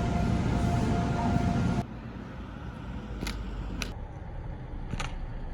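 Passenger train running with a low rumble and a faint steady whine, cutting off abruptly about two seconds in to a quieter background with a few sharp clicks.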